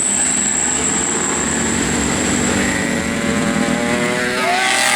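Tour bus engine running as it passes, its note rising from about halfway. Near the end a musical 'telolet' air horn starts a long held note.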